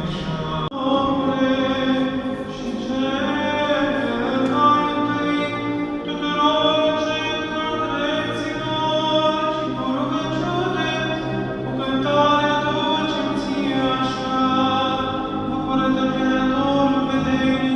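Church choir singing Romanian Orthodox liturgical chant, several voices in harmony on long held notes that change slowly.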